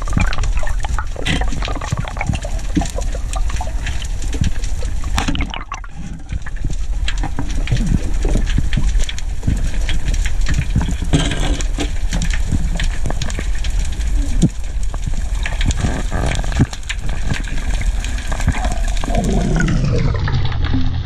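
Underwater sound picked up through a camera housing: a steady rush of water with a low rumble and frequent short clicks and crackles. Near the end, as bubbles stream past, a tone falls steadily in pitch.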